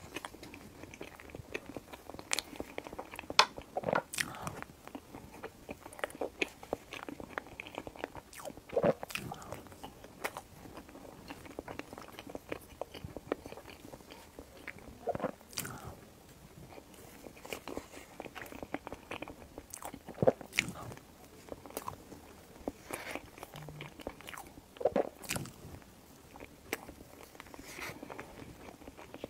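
Close-miked eating sounds of soft chocolate mille crêpe cake: irregular wet clicks and smacks of chewing, with a metal fork cutting and tapping against a paper plate.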